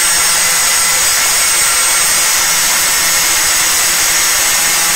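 Handheld circular saw fitted with an abrasive metal-cutting disc, cutting through steel rebar under load: a loud, steady, high-pitched grinding whine.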